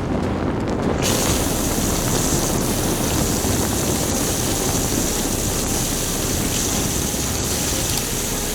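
Steady low mechanical rumble with a loud hiss that comes in suddenly about a second in, like a heavy vehicle running.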